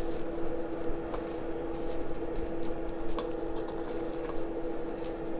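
Steady hum under a few faint clicks and scrapes of a fork and knife turning meat in an air fryer basket.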